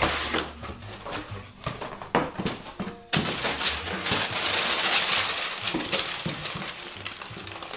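Cardboard box flaps knocking and scraping as the box is opened. About three seconds in, brown kraft packing paper starts to rustle and crinkle loudly as it is pulled out of the box.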